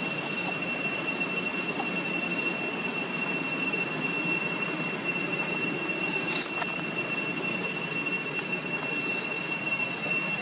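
Evening insect chorus: a steady high-pitched whine held on one pitch over a constant background hiss, with one brief click about six and a half seconds in.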